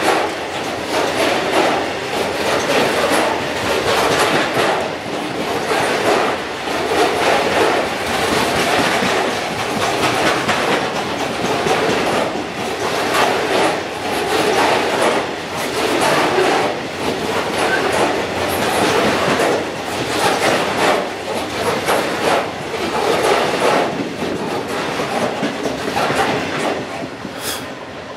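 Long freight train of covered wagons passing close by, its wheels clattering in a steady rhythm over the rail joints. The sound fades as the last wagons go by near the end.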